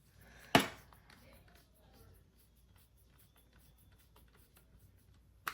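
A sharp click about half a second in, then faint small ticks and scrapes, and another click near the end: a small precision screwdriver driving a tiny pentalobe screw into the bottom edge of an iPhone 11.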